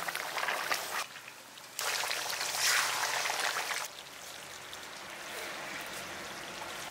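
Duck curry boiling in a wide aluminium kadai: a steady bubbling hiss that drops and rises in level a few times, about one, two and four seconds in.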